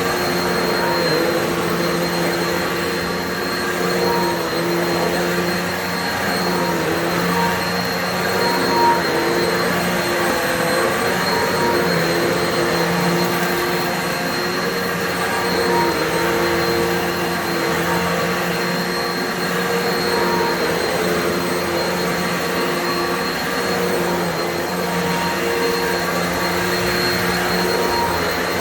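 Upright vacuum cleaner running steadily: a motor hum with a high whine, its pitch dipping briefly now and then.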